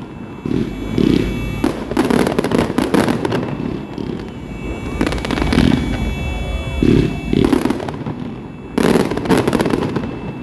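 Fireworks display going off close by: repeated bangs and crackling in several rapid volleys.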